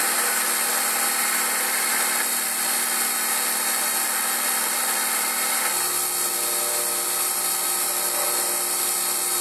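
Emco Compact 5 CNC lathe cutting aluminium 6082-T6 bar: the spindle runs steadily at 1300 RPM under a steady whine from the machine's drives as the tool takes 0.5 mm passes. The pitch of the drive tones changes about six seconds in.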